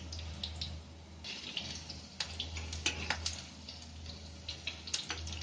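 Vegetable manchurian balls deep-frying in a kadhai of hot oil: a steady sizzle with many small crackles and pops scattered through, over a low steady hum.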